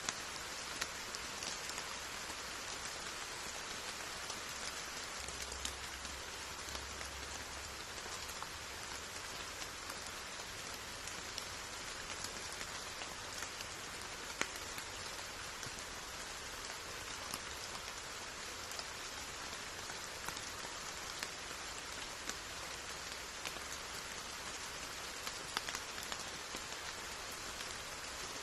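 Steady rain falling, an even hiss with scattered close raindrops standing out as sharp ticks.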